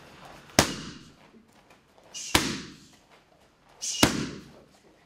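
A kickboxer's strikes landing on leather Thai pads: three hard smacks about a second and a half apart, the last one a kick, each with a short echo in the room.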